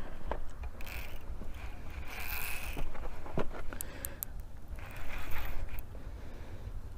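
Fishing reel working in short raspy spells, the reel or its drag, as a hooked striped bass is played in gently, with a few sharp ticks about four seconds in and a steady low rumble underneath.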